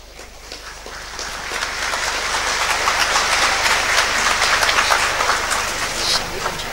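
Large crowd applauding, dense clapping that builds over the first two seconds and then holds steady.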